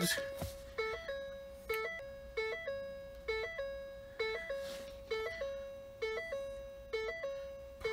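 A 2010 Ford F-150's electronic warning chime ringing over and over, a little faster than once a second, each ding fading before the next.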